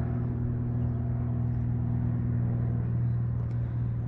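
A loud, steady low-pitched hum that holds one unchanging pitch throughout and cuts off abruptly at the end.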